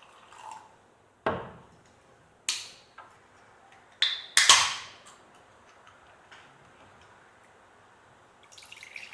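Aluminium energy drink cans and glasses being handled on a table: a few sharp knocks and clinks, and about four seconds in, the loudest sound, a tab click followed by a short fizzing hiss as a can is cracked open. Near the end, drink starts to pour into a glass.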